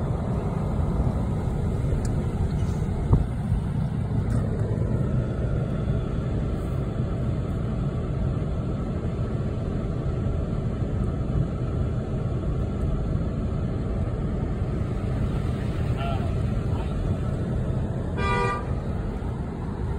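Steady low road and engine rumble heard from inside a moving car's cabin. Near the end a car horn gives one short toot.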